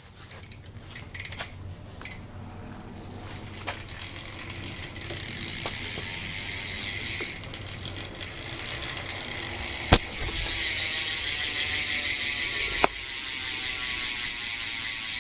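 Rear cassette hub of a 2011 Eastern Nitrous Cobra BMX freewheeling: its pawls click in a fast, buzzing ratchet as the wheel spins. It starts about five seconds in, eases off briefly, then comes back louder from about ten seconds in.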